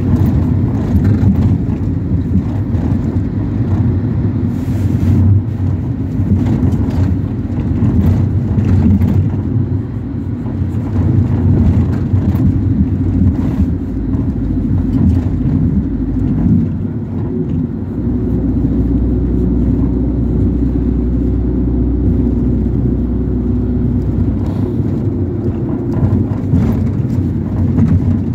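Ford Transit minibus on the move, heard from inside the passenger cabin: a continuous low engine and road rumble with occasional knocks and rattles, settling into a steadier low drone for several seconds after the middle.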